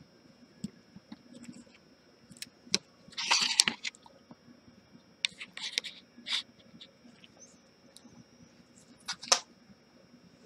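Scattered light clicks, taps and rustling of a phone and small parts being handled on a workbench, with a longer rustle about three seconds in and a couple of sharper clicks near the end.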